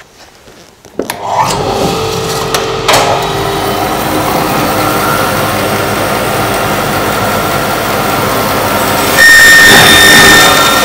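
A bandsaw is switched on with a click and runs up to a steady drone. About nine seconds in, the blade starts cutting into a chunk of raw log, which makes it louder and adds a steady high whine.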